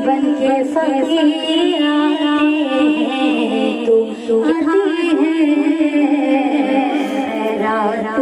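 Women's voices singing a naat, a devotional song in praise of the Prophet, in a steady melodic recitation.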